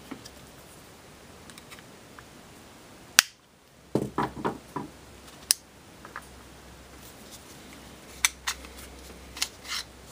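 Scattered metallic clicks and clacks of a Ruger LCP pocket pistol being taken apart by hand, with its slide coming off and being set down on the table. One sharp click about three seconds in is the loudest.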